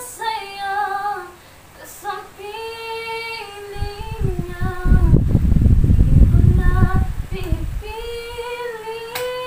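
A girl singing unaccompanied, holding long sustained notes with a short pause about two seconds in. For a few seconds in the middle, a loud low rumble covers the singing.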